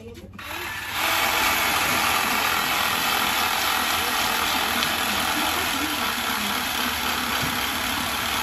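Handheld electric saw starting up about half a second in and running steadily as it cuts into the head of a large bluefin tuna.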